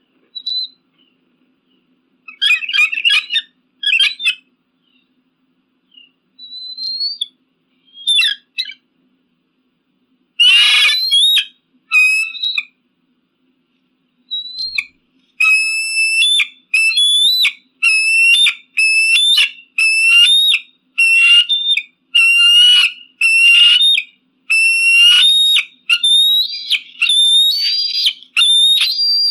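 Eagle calling: high-pitched whistled calls, scattered at first, with one harsher scream about ten seconds in. From about halfway it breaks into a fast run of short piping notes, roughly two a second.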